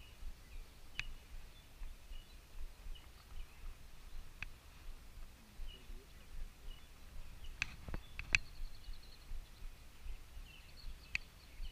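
Faint birds chirping here and there over a low rumble, with a few sharp clicks; three clicks close together a little past the middle are the loudest sound.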